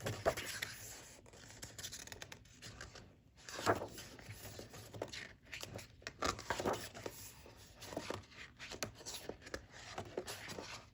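Paper and packaging being handled: irregular rustling and scraping with light taps, a few louder rustles about four and six seconds in.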